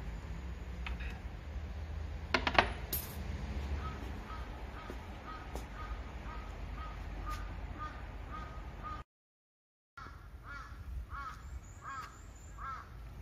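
Coins dropping into a wooden shrine offering box, a quick burst of clinks with a brief ringing about two seconds in. Birds call repeatedly in the background, most plainly in the last few seconds.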